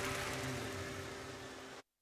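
Crowd applause and cheering at the end of a live music performance, with a faint held note from the stage under it. It fades gradually, then cuts off abruptly to silence near the end.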